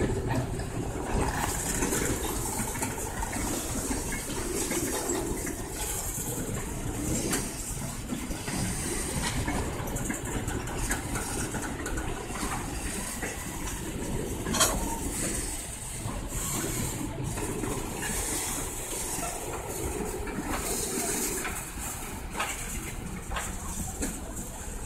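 Freight boxcars rolling past on the rails: a steady rumble and clatter of steel wheels, with a sharp metallic clank about halfway through.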